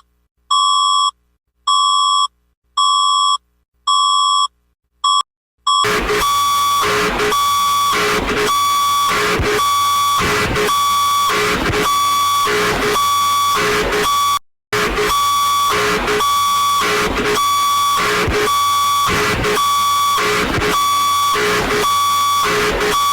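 Mock tsunami warning alarm: a run of evenly spaced, high-pitched electronic beeps for about six seconds. These give way to a harsh, distorted, pulsing alarm with a steady shrill tone, which cuts out for an instant midway and then stops abruptly.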